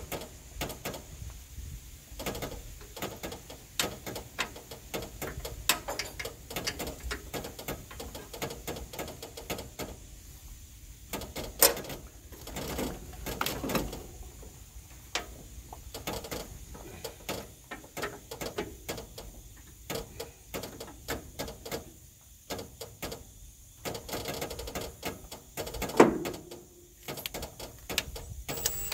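Hand tools working on the truck's metal suspension hardware: irregular runs of clicking and clinking, with a louder metal clank about twelve seconds in and another near the end.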